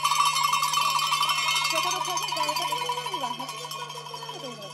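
Spectators' cowbells ringing in rapid continuous shaking, dying away over the last second or so, with spectators' voices calling out beneath them.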